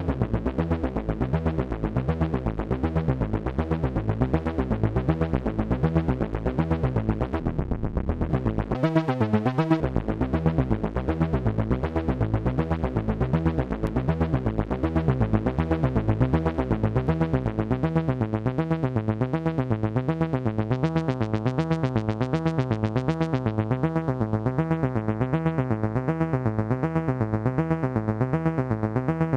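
AnalogFX SER-2020 analog synthesizer playing a continuous, rapidly pulsing modulated tone whose pitch and timbre wobble in a repeating pattern. About nine seconds in there is a brief sweep. A steady higher tone joins about halfway through, and near the end the sound turns duller as the top end is cut back.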